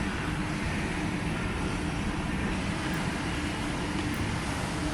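Steady city background noise: a low, even hum of distant traffic.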